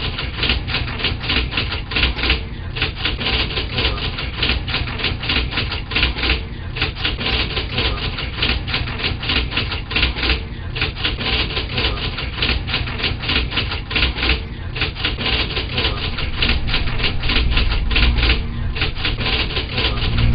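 Rapid clatter of typewriter keys, breaking off briefly about every four seconds, over a low steady hum.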